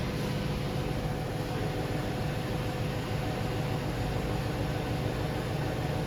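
Steady mechanical hum and whirr of a running machine, even throughout, with a low rumble and a faint steady tone.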